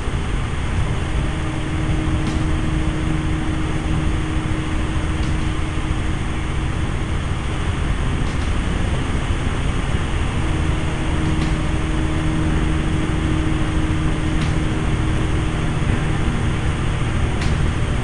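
Helicopter cabin noise in flight: the engine and rotor drone steadily, with a low hum running under it.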